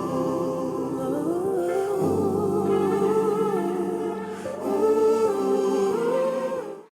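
Background music: a slow, gliding vocal melody over held notes, cutting off abruptly near the end.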